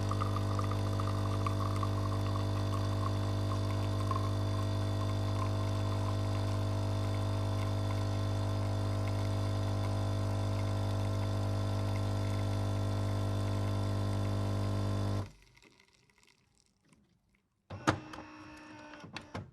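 Coffee machine running with a steady hum that stops abruptly about fifteen seconds in. Near the end comes a single sharp click followed by a brief, quieter rattle.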